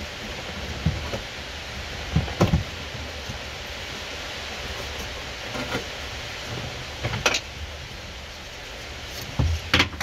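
Seat belt webbing and its metal hardware being worked through a gap in plastic interior trim: scattered knocks, scrapes and rustles of plastic and belt, over a steady hiss.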